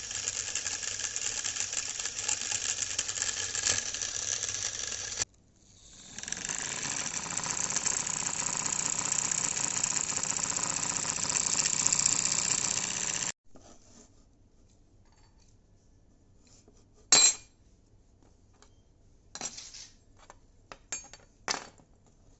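Home-made electric motor running with a CPU cooling fan, a dense metallic rattling buzz. It cuts off suddenly, builds up again a second later and stops abruptly about two-thirds of the way in, followed by a few sharp clicks.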